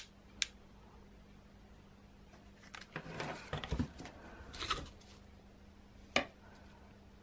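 Corrugated cardboard pieces handled and pressed together on a tabletop: a couple of light clicks at the start, a few seconds of scraping and rustling in the middle, and one sharp tap a little after six seconds in.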